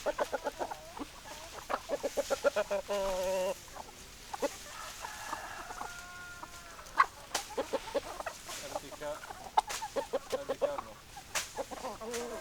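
Chickens clucking in quick runs of short calls, with one longer, drawn-out call about three seconds in and a fainter long call around the middle.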